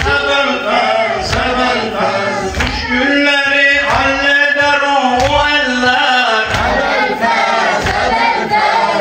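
Men chanting a Shia mourning lament for Imam Hussein together in a steady, sung melody, with low thuds keeping time about twice a second.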